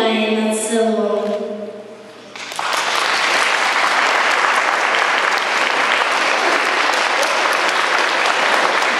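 Voices hold a last sung note that fades out about two seconds in. After a brief lull, an audience breaks into applause that keeps going steadily.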